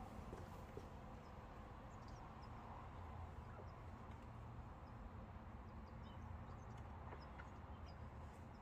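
Near silence: a steady low hum of room tone with a few faint ticks.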